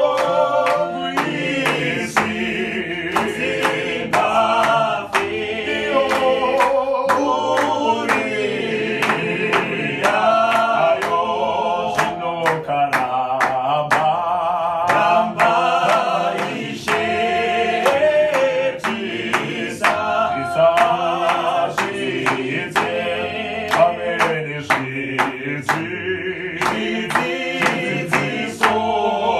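Mixed choir of men and women singing a Shona hymn a cappella in harmony, with steady hand claps keeping the beat.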